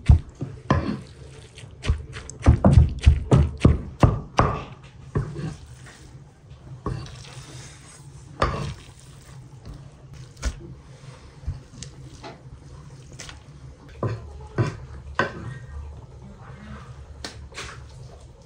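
Heavy cleaver chopping a wet mound of minced meat, onion and herbs on a thick wooden chopping board: quick repeated chops for the first few seconds, then scattered single knocks and scraping as the mixture is gathered up.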